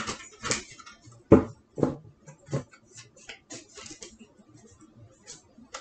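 A deck of tarot cards being shuffled by hand: a run of irregular soft card slaps and clicks, with two louder ones about a second and a half and two seconds in.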